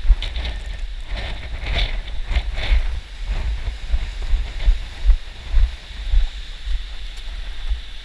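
Wind buffeting an action camera's microphone in low rumbles, with dull thumps about every half second to second from footsteps as the wearer moves over the cliff rocks.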